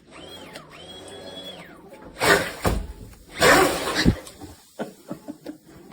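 Brushless motor of an RC speedboat whining up and down in two short throttle taps. Then two loud rushing bursts of about half a second each, the propeller churning water, followed by a few small knocks.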